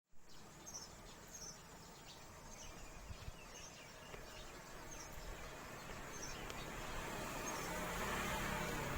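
Outdoor ambience: insects chirping, with short faint high chirps about once a second, over a hiss that slowly grows louder.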